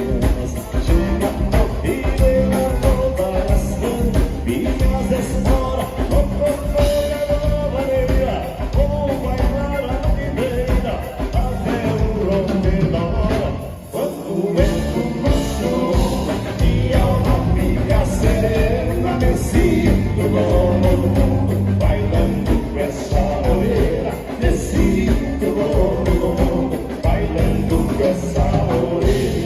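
Vanera (vaneira), gaúcho dance music, led by accordion (gaita) over a steady bouncing beat; the music thins out briefly about halfway through.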